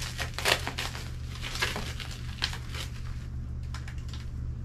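Clear plastic wrapping crinkling and rustling as a silver bag is handled inside it, in irregular bursts that thin out after about three seconds.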